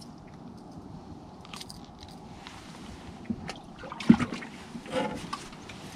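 Scattered clicks and knocks of gear being handled on a boat deck at an open hatch, with one louder knock about four seconds in, over a low steady background noise.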